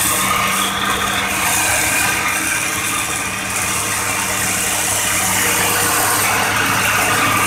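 Heavy excavator's diesel engine running with a steady low drone, heard from its cab.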